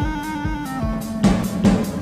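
Live swing band playing an instrumental passage: a drum kit beats steadily on bass drum and snare under held chords that change about a second in.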